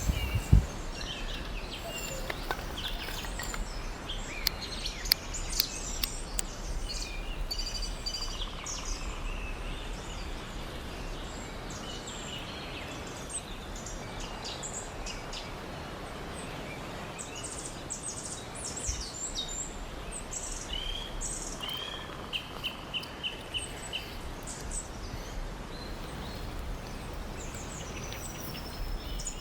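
Wild birds chirping and calling, with a short trill of about six quick repeated notes a little past the middle. Scattered sharp clicks and a low steady rumble run underneath.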